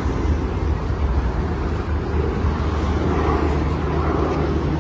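Steady outdoor street noise: a constant low rumble under an even hiss, with no single event standing out.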